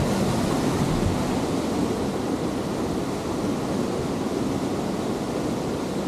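Steady rushing noise of river water at a waterfall, mixed with wind on the microphone.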